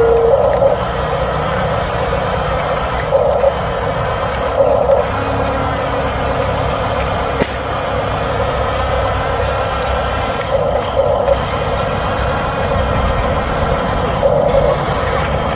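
Huina RC bulldozer's electric drive motors and gearboxes running steadily as the toy works, a continuous mechanical whir.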